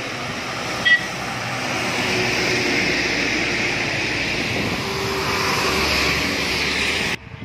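Road traffic on a wet hill road: a steady noise of passing cars and a bus, with a brief horn beep about a second in. The sound cuts off abruptly near the end.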